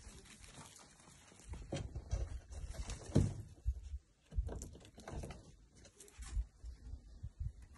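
Faint, irregular rustling and crackling of dry vine stems as a cat paws and bats at them, mixed with soft low thumps.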